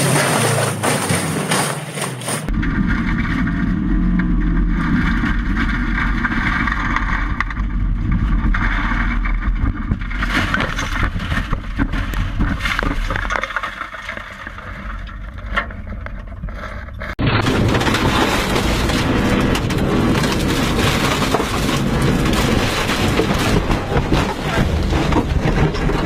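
Rally cars crashing, in three short clips that cut abruptly about two and a half seconds in and again near seventeen seconds: engine noise and rumble mixed with repeated knocks and scraping of a car going off the road.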